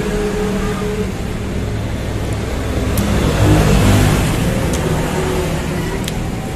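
Steady road-traffic rumble, with a vehicle passing that swells to its loudest about three to four seconds in and then fades.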